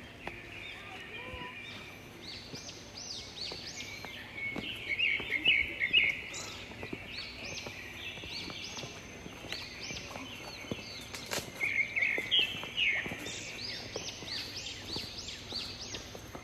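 Several small birds chirping and singing, with quick rising and falling chirps in repeated clusters. A thin steady high-pitched tone runs under them.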